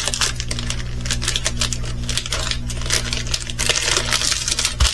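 Small plastic bags of resin diamond painting drills being handled: a quick, irregular clicking rattle of the beads inside, with crinkling of the plastic.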